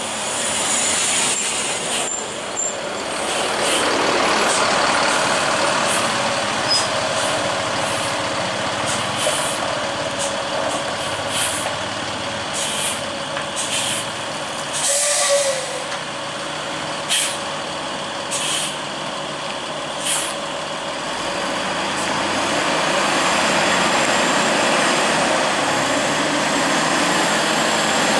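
Air brakes on a heavy vehicle hissing in a string of short bursts over steady engine and road noise, with one longer, louder hiss about halfway through. Near the end the engine noise swells.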